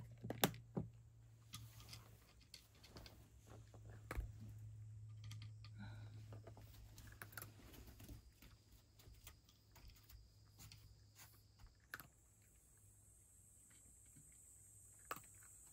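A cat crunching dry kibble from a tray: small, irregular crisp crunches that thin out after about twelve seconds. A couple of louder knocks come right at the start.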